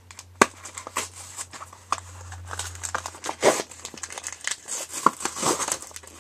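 Trading-card box packaging being torn open and handled: irregular crinkling and tearing with scattered sharp clicks, the sharpest about half a second in.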